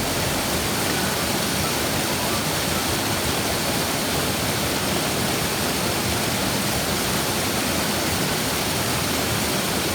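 Gee Creek Falls, a small mountain waterfall, pouring: a steady, even rush of falling water.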